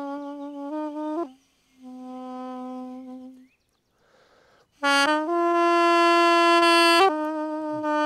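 An apricot-wood mey, the Turkish double-reed pipe, playing a slow melody of held notes joined by short ornamental turns. About two seconds in comes a softer, lower held note. After a short gap it comes back loud about five seconds in with a long sustained higher note, then steps down through quicker notes.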